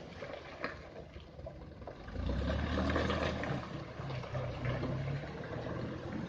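Heavy vehicle engine running, its low drone getting louder and stronger about two seconds in, over a steady hiss.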